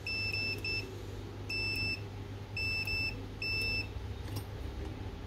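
Digital multimeter's continuity beeper sounding in five short bursts of a steady high beep, some stuttering, as the probes touch the MOSFET tabs and the heatsink during a continuity check. A light click follows near the end.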